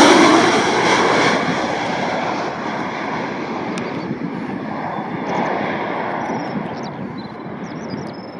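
Jet airliner passing close and then moving away, its engine noise fading steadily.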